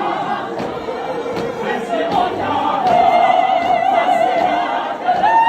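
A choir or gathering of voices singing together, with a long held note about halfway through.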